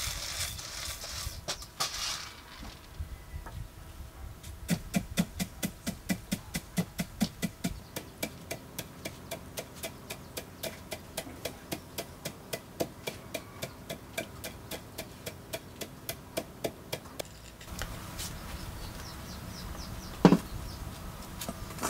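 Roasted peanuts rattling as they are poured from a metal tray into a mortar, then a pestle pounding them in the mortar in a steady rhythm of about three strokes a second for some twelve seconds. One sharp knock near the end.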